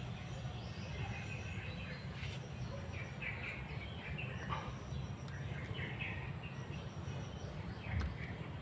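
Birds chirping on and off in short calls over a steady low rumble, with a steady high-pitched whine; one sharp click near the end.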